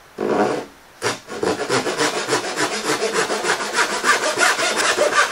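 Handsaw cutting across a 3/4-inch wooden board along a marked pencil line: one short stroke, a brief pause, then quick, even back-and-forth strokes.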